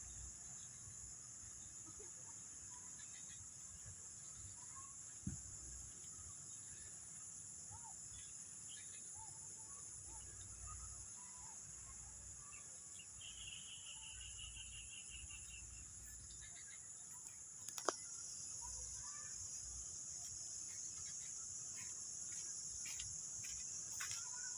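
Steady, high-pitched insect chorus, with a few faint short chirps and a brief fluttering trill about halfway through. A single sharp click comes about 18 seconds in.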